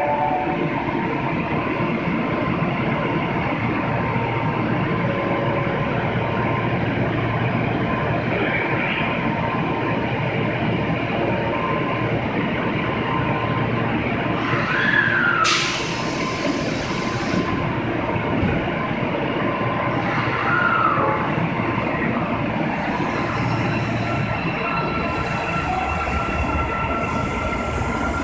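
Osaka Metro 22 series subway train standing at the platform and running steadily. A short hiss comes about halfway through, and near the end the train pulls away with a motor whine.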